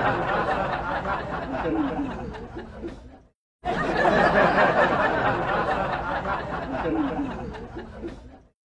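A group of men laughing and talking over one another. The sound breaks off into silence for a moment about three seconds in, and the same stretch of laughter then plays again.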